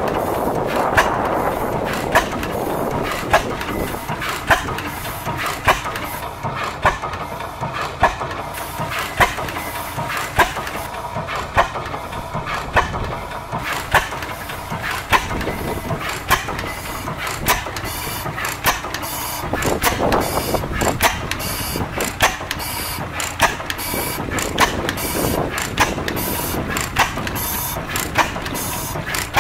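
Large International Harvester single-cylinder stationary gas engine running, with a sharp beat about once a second and lighter mechanical clicking between the beats.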